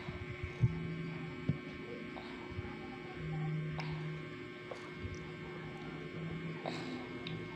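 A steady low electrical hum, with a few soft taps and clicks, the loudest two near the start.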